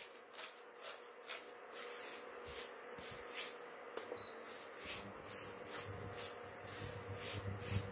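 Silicone spatula stirring and scraping dry vermicelli and desiccated coconut around a nonstick pan as they roast: a faint rustling scrape with each stroke, about two strokes a second, over a faint steady hum.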